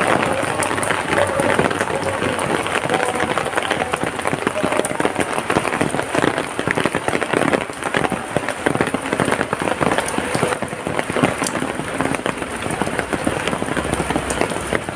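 Heavy rain falling steadily, a dense unbroken patter of drops hitting surfaces.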